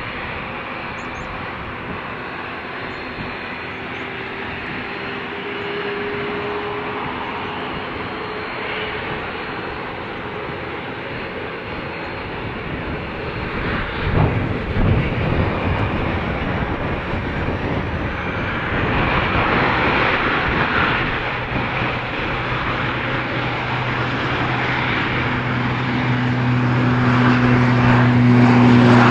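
Twin Pratt & Whitney Canada PW308C turbofans of a Dassault Falcon 2000LX business jet running as it taxis: a steady rushing jet noise that surges suddenly about halfway through and grows louder toward the end, where a low steady hum comes in.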